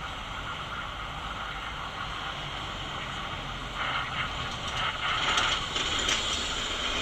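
Steady hum of city street traffic. From about four seconds in it is joined by a run of small, irregular mechanical clicks and whirs.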